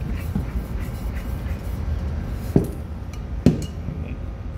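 Handling of a small aluminium calibration gas cylinder and its tubing: two sharp knocks about a second apart, over a steady low hum.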